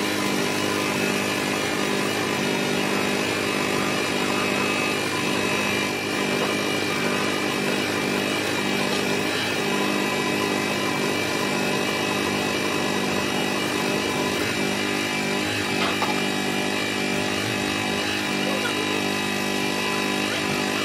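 Electric bench buffing motor running steadily with an even hum and whine, its buffing wheel polishing a plastic car headlight pressed against it.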